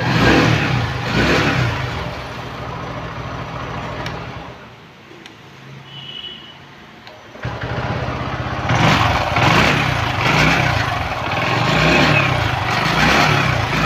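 TVS XL100 moped's small single-cylinder four-stroke engine running with freshly fitted clutch shoes, its throttle blipped repeatedly. About four seconds in it drops to a quieter low running, then comes back sharply louder about seven and a half seconds in and is revved in pulses roughly once a second.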